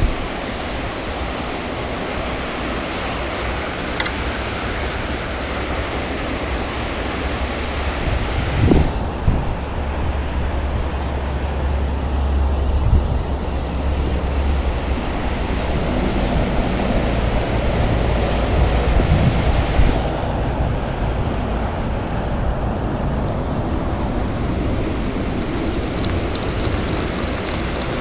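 Wind buffeting the microphone outdoors: a steady rushing noise with a heavy, gusting low rumble. The hiss thins and the rumble swells from about 9 to 20 seconds in.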